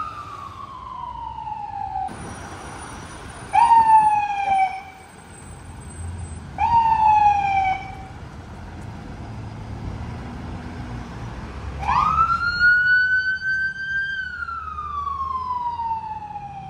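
Fire department emergency vehicle siren. A wail winds down at first, then come two short, loud blips about three seconds apart, each rising sharply and falling away. Near the end a full wail rises slowly and falls again, over the low rumble of the vehicle.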